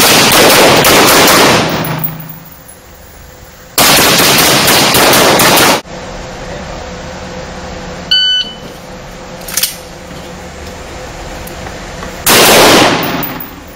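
Tactical rifle fired in three long rapid strings of shots, the first two about two seconds each and the last about a second, the shots running together into very loud continuous bursts.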